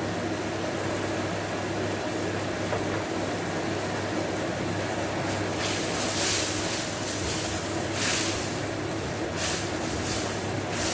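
Fan running with a steady hum over the sizzle of spice paste frying in a pan, with brief louder hissing surges about six and eight seconds in.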